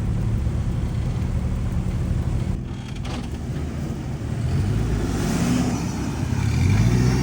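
Off-road 4x4's engine working in rough terrain, revving up about five seconds in and again near the end.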